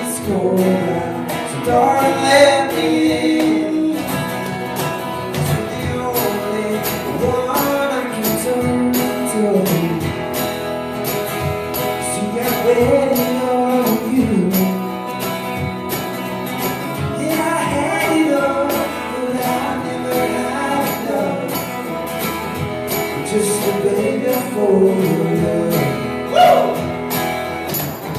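Live acoustic song: a man singing to a strummed acoustic guitar, with hand percussion keeping a steady beat.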